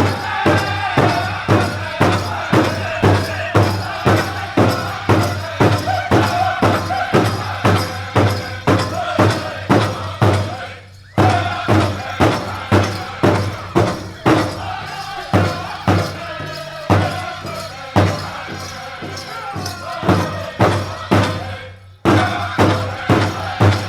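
Powwow drum group singing a grass dance song: a steady beat of several singers striking one big drum, about two to three strokes a second, under high wavering voices. The song breaks off briefly twice, around eleven seconds in and near the end, then the drumming starts again.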